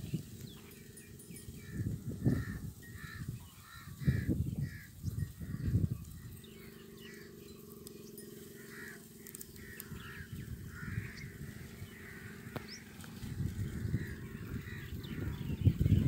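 Open-field ambience of birds chirping and calling over and over, with a faint steady hum in the middle of the stretch and bouts of low rumbling noise.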